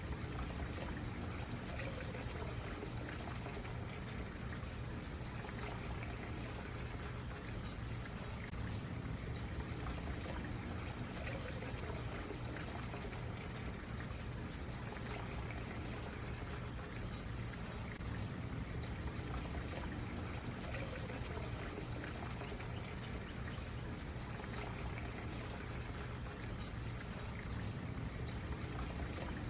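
Small stream running and trickling steadily.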